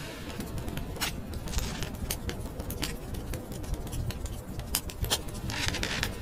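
Scattered sharp clicks and scraping over a steady low rumble, with a brief hiss near the end.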